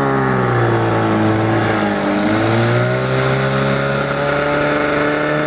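Outboard motor driving a small aluminium fishing boat under way. Its pitch dips about two seconds in, then climbs back and holds steady.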